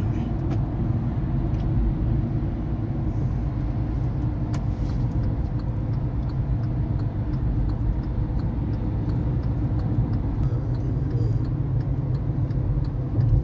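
Steady low rumble of a car driving at city speed, heard inside its cabin: engine and tyre noise on the road.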